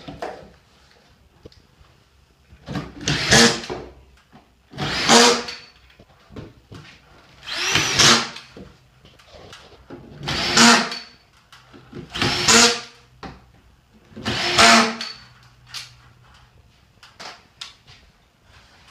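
Electric drill-driver running in six short bursts of about a second each, a few seconds apart, each with a steady motor whine, and light knocks between the bursts: screws being driven to fix plasterboard sheets to the ceiling battens.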